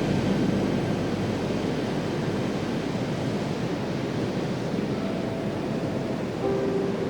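Ocean surf washing in, a steady rushing hiss. Faint music notes come back near the end.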